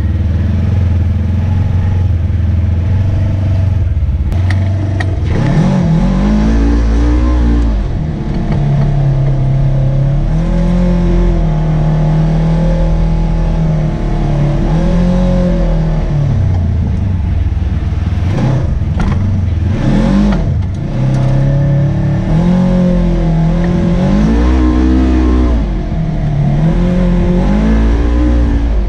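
Polaris RZR 900 side-by-side's twin-cylinder engine revving up and down over and over as it is driven hard along a dirt and mud trail, with a few short knocks from the trail at about 4 seconds and again near the middle.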